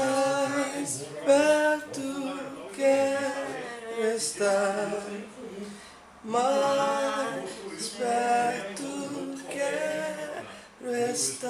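A woman singing a slow melody without accompaniment, in phrases of long held notes with short breaks between them.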